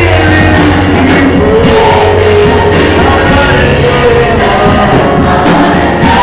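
Loud live worship music: a man singing into a handheld microphone over steady bass accompaniment, amplified through the hall's PA.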